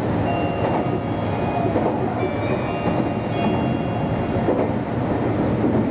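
Meitetsu 1200 series electric train running at speed, heard from inside: a steady rumble of wheels on rail. Faint high-pitched squeals come and go from just after the start to about halfway through.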